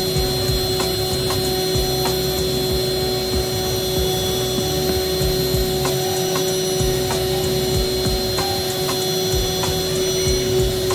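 CNC router spindle milling end-grain wood, a steady whine at constant pitch with the cutter's noise and scattered short ticks.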